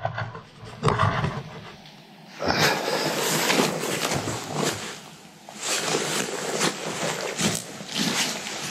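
Rustling of waterproof rain clothing and footsteps on the forest floor as a person moves close to the microphone, in two stretches, the second starting about five and a half seconds in and running longer.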